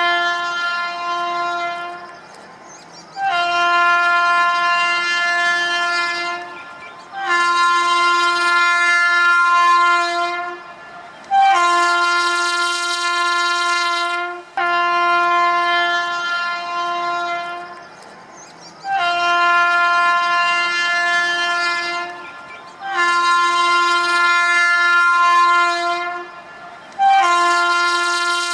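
Train horn sounding a series of long, steady blasts of one unchanging pitch, each about three seconds long, one starting about every four seconds.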